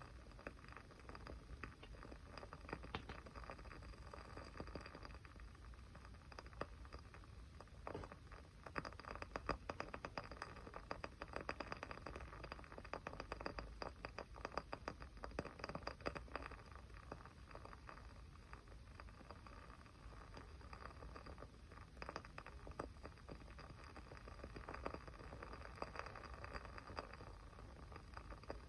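Small fire crackling steadily: a dense, irregular run of faint little pops and snaps over a low hiss.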